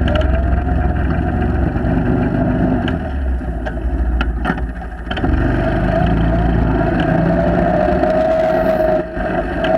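ATV engine running while under way, with a steady whine over the engine note. The engine note drops briefly about halfway through, with a few clicks, then picks up again.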